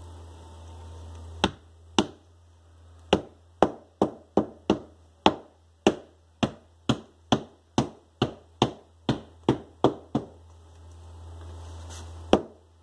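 A mallet knocking a metal tack strip through upholstery fabric into the back of a sofa: about twenty sharp knocks, two or three a second for most of the run, then a single last one after a pause near the end.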